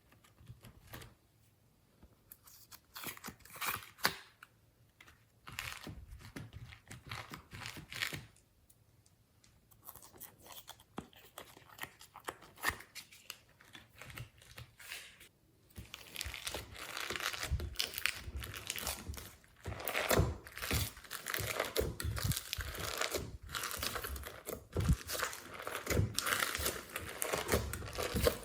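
Slime being stretched, squeezed and pulled apart by hand, making sticky tearing and crackling noises. The noises are scattered at first and become a dense, continuous run about halfway through.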